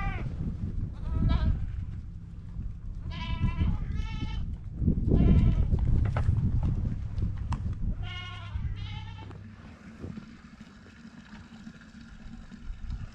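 Goats bleating, about six short calls in the first nine seconds, over a low rumble.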